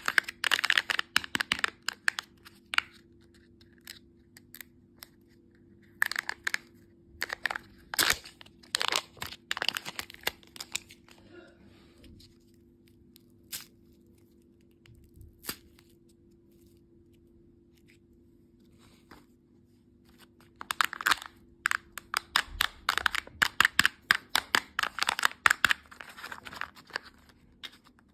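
Plastic candy packaging crinkling and tearing in three spells of rapid, crisp crackles, with quieter pauses between them.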